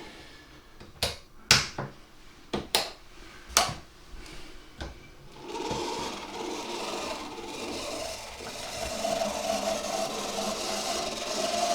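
A series of about seven sharp clicks, then from about halfway a model locomotive's small electric motor and gears running with a steady whirr. The owner puts the motor's noise down to dried-up lubrication.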